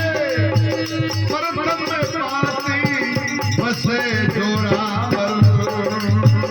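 Rajasthani folk bhajan music: a steady hand-drum beat with rattling percussion under a bending, ornamented melody line.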